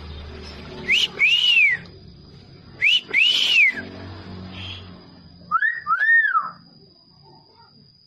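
Hill myna whistling: three two-note whistles, each a short rising note followed by a longer arching note that rises and falls, the third pair lower in pitch than the first two.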